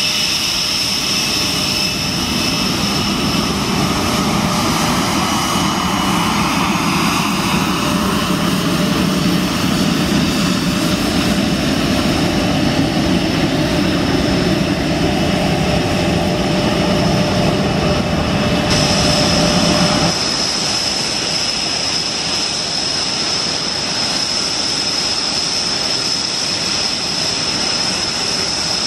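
Panavia Tornado's twin RB199 turbofan engines running on the ground at low power: a steady high whine over a dense rumble. The sound changes abruptly about twenty seconds in, the low rumble dropping.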